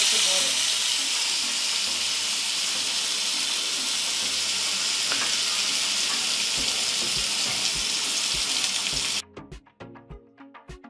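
Spice-marinated beef chaap frying in hot oil in a nonstick pan, with a steady sizzle that cuts off abruptly about nine seconds in. Background music with a regular beat comes in under the sizzle near the end and is left alone after the cut.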